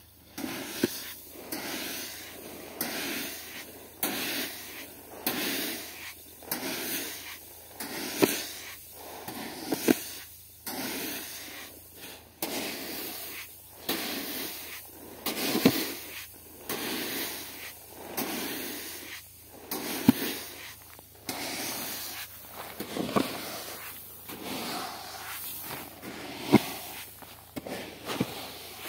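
Wheat grain being scooped again and again with a plastic tub from a heap of seed, a rushing hiss of sliding grain about once a second, with now and then a sharp knock of the tub.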